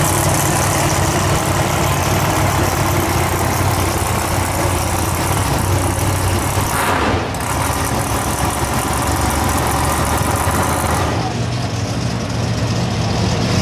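Monster truck engine idling steadily with a low, even rumble.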